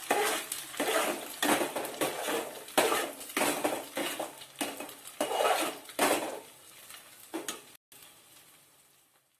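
A steel spoon scraping and knocking against an aluminium frying pan, about two strokes a second, as eggs frying in oil are stirred and broken up. The strokes stop about seven seconds in.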